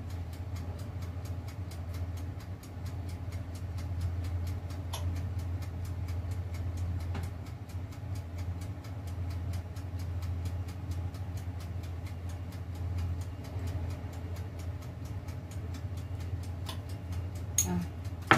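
Countertop electric oven heating up, its mechanical timer ticking steadily about four times a second over a low electrical hum. A few light taps, and a sharp clack near the end.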